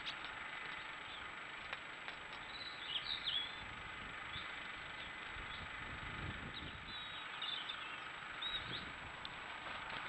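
Steady outdoor background hiss with small birds chirping and twittering briefly, about three seconds in and again near the end, and a few faint taps.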